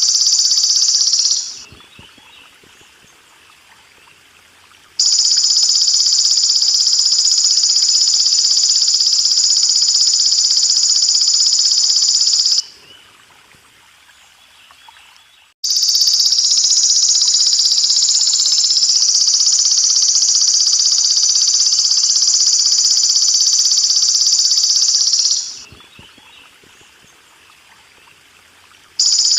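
Belalang emas (golden grasshopper) singing: a loud, steady, high-pitched buzzing trill. It fades out about a second and a half in, again around twelve seconds in and near the end, and after each pause of a few seconds it starts again abruptly. A faint trickle of water can be heard in the pauses.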